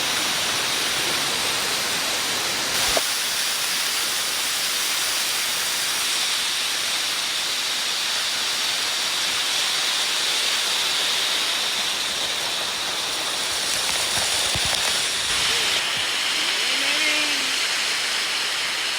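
Waterfall: a steady rushing hiss of falling water.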